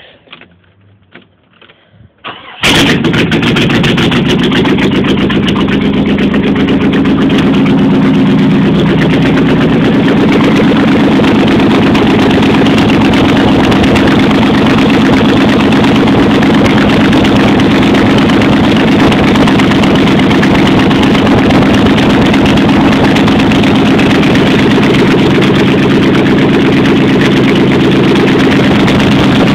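1989 Jeep Grand Wagoneer's AMC 360 V8 with a two-barrel carburettor, on a cold start with open headers, catching suddenly about two and a half seconds in and then running loud and steady.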